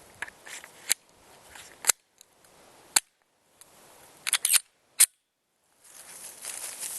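Glock 20SF pistol with a .38 Super conversion barrel firing single shots, about five sharp reports roughly a second apart, test-firing a full magazine to check that it cycles.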